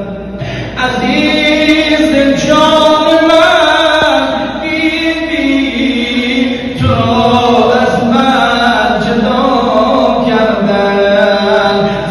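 A man's voice chanting a noha, a Shia lament for Imam Husayn, unaccompanied into a microphone, in long held notes that bend slowly in pitch, with short breaks between phrases.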